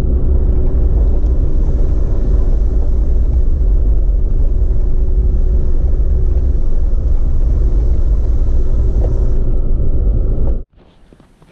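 A car driving on a snow-covered road: a loud, steady rumble of engine and road noise, heavy in the low end. It cuts off abruptly near the end.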